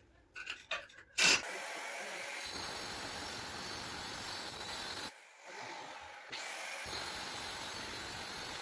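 Handheld electric marble cutter grinding along the edge of a black granite countertop: a few light knocks, a sharp knock about a second in, then a steady grinding hiss of the disc cutting stone that drops away briefly around the middle and picks up again.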